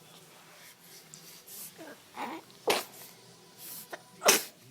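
Baby sneezing twice in a row during a sneezing fit, about a second and a half apart, with short breaths drawn in before each. The second sneeze is the louder.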